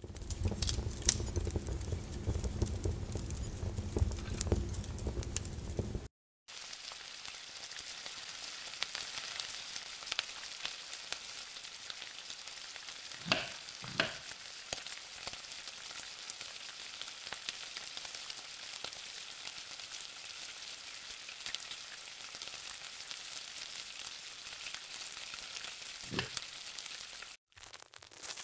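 Food sizzling as it fries in oil in a pan, a steady hiss with a few knocks of stirring about halfway through. It is preceded by about six seconds of a lower rumbling crackle that stops abruptly, and the sizzling cuts off shortly before the end.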